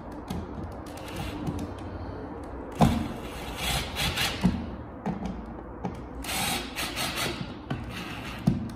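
Cordless drill with a long screwdriver bit driving a receptacle's mounting screw through plastic shim spacers, in two short runs about three and a half and six seconds in, with a sharp click just before the first.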